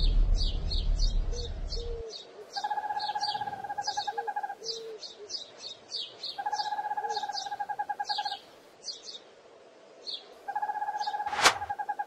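Birds chirping over and over in quick high notes, with a rapid pulsing trill that comes in three spells of about two seconds each. A low rumble stops abruptly about two seconds in, and a sharp sudden sound comes just before the end.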